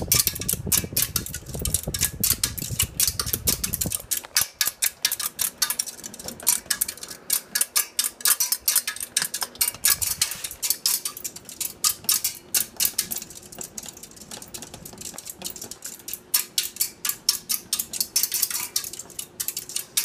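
Hunter Silent Breeze ceiling fan running on high and wobbling badly, giving a fast, even metallic rattle of clicks several times a second as the whole fan shakes. A low rumble drops away about four seconds in. The rattle comes from the wobble, which means the fan is out of balance on high speed.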